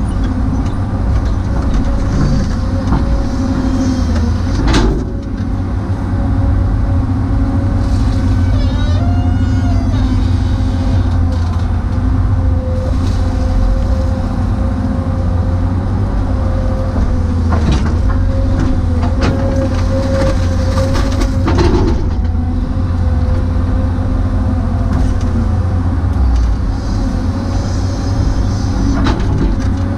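Kobelco SK250 LC excavator's diesel engine and hydraulics running steadily under load while digging, heard from inside the cab, with a steady whine over the engine and a few sharp knocks from the bucket and boom.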